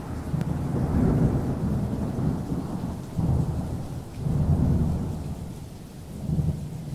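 Thunderstorm: low rolling thunder with rain, swelling about four times and slowly dying away.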